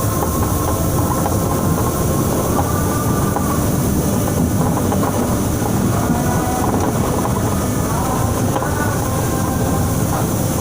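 Transjakarta bus driving in heavy rain: a steady rumble of engine and tyres on the wet road with a hiss of rain, and thin whining tones that wander up and down.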